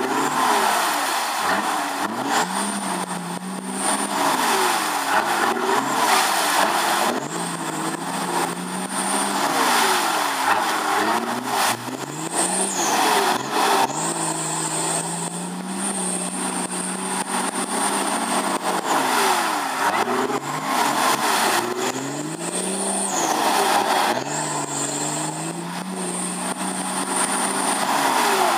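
Off-road 4x4 engine revving up and down again and again, its pitch climbing and dropping several times with steadier held stretches in between. A thin high whine comes in during the held stretches.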